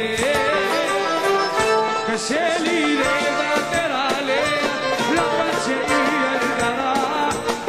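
Live Middle Eastern music: an ornamented, wavering melody line over a steady drum beat.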